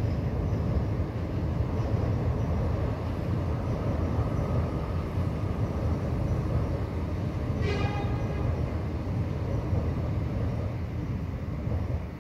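A train running across a railway bridge: a steady rumble of wheels on rails, with a brief high squeal about eight seconds in. The sound fades near the end as the train clears the bridge.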